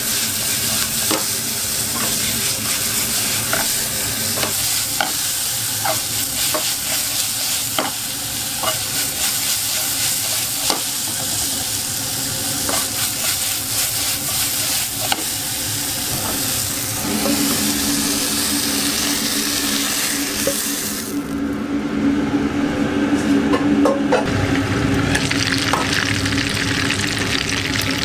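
Sliced onions stir-frying in a wok and then a burger patty frying in hot oil: a continuous sizzle, with sharp clicks of the pan or utensil about once a second over the first half. A steady low hum joins in about halfway through.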